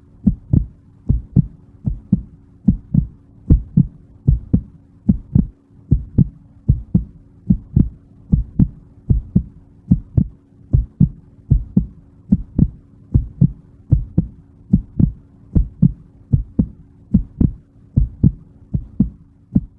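Heartbeat sound effect: a steady lub-dub of low double thumps, a little over one beat a second, over a faint steady hum.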